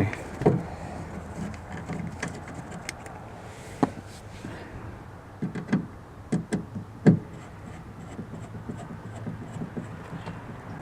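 Scattered clicks and knocks of an aftermarket speaker mount and its screws being handled and fitted against a car door's inner panel. The loudest knock is about seven seconds in, over a faint steady hum.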